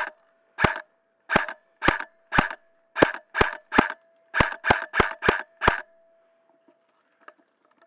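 Airsoft gun fired in single shots, about thirteen sharp cracks in quick, uneven succession over roughly six seconds, then it stops.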